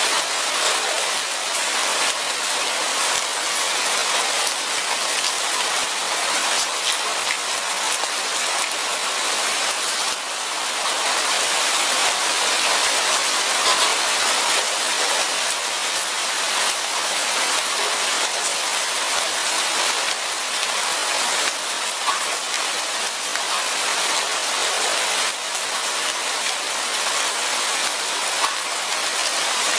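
Steady rain falling, pattering on leaves and ground with many fine drop ticks and no letup.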